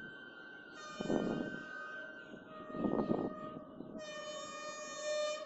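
Approaching goods train's locomotive horn sounding long, steady multi-tone blasts, with a fresh blast starting about four seconds in. Two loud gusts of rushing noise come about a second in and again about three seconds in.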